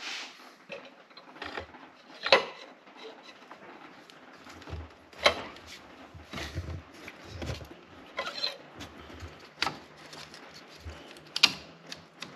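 Hands working among the parts of an engine bay and handling a metal oil filter adapter: about six scattered sharp clicks and knocks with a few soft low thuds between them, the loudest a little past two seconds in and near the end.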